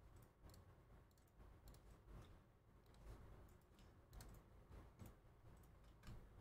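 Near silence with faint, irregular clicks from a computer keyboard.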